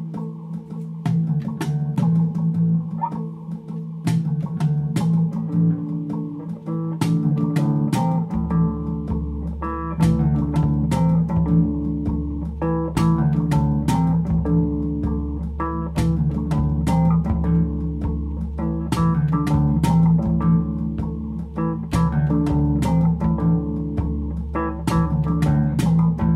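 Background music: plucked guitar over a steady beat, with a bass line coming in about eight seconds in.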